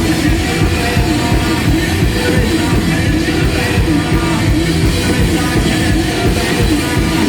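Live rock band playing loud, with distorted guitars, bass and drums in a steady, dense wall of sound.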